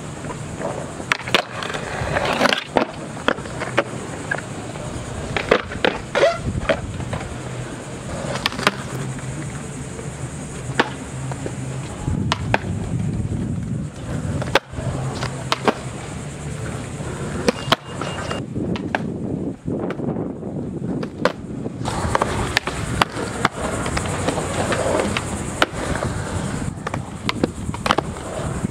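Skateboard wheels rolling on a concrete skatepark surface, broken by many sharp clacks of tail pops and landings. About halfway through, the board grinds along a concrete ledge.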